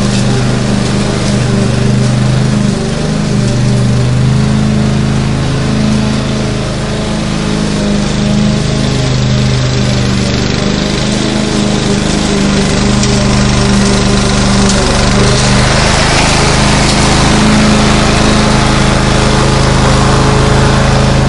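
Lawn mower engine running steadily at a constant speed, its hum wavering slightly.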